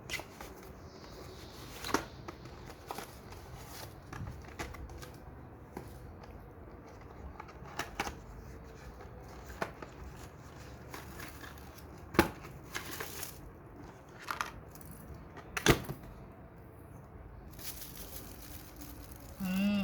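Packaging of light bulbs being handled: scattered sharp clicks and knocks, with short bursts of crinkling and tearing packaging.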